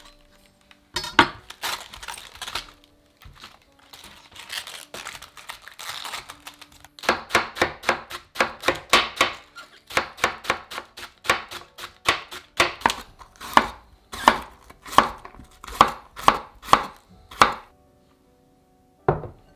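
Chef's knife cutting cabbage on a wooden cutting board. A few irregular cuts trim the core, then comes a run of even, rapid chops, about two to three a second, as the cabbage is finely shredded. The chopping stops about a second and a half before a single knock near the end.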